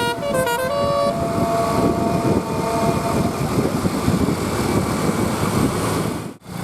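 Bus 'telolet basuri' musical horn playing the last notes of its tune, which stop about a second in, followed by the loud, rough noise of the bus going by. The sound cuts off abruptly near the end.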